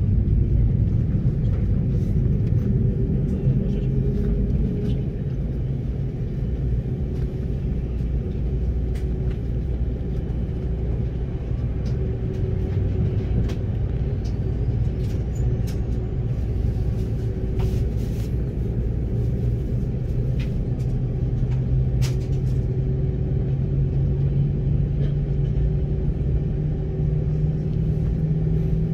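Cabin noise of an Airbus A330-300 with Rolls-Royce Trent 700 engines: a steady, loud rumble with a low engine hum that creeps up in pitch over the last several seconds.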